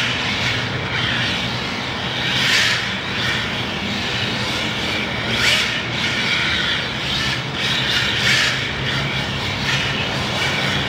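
A 1/10 rear-wheel-drive RC drift car (MST FMX 2.0 LCG chassis, Team Powers 10.5T brushless motor) drifting: the motor's whine and tyre scrub swell and fade every one to three seconds as it throttles through the turns.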